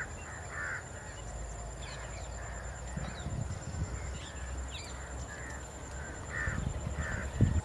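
Crows cawing repeatedly in short calls, over low rustling and cracking of vegetation as a wild Asian elephant feeds in the bushes, with one sharp crack near the end.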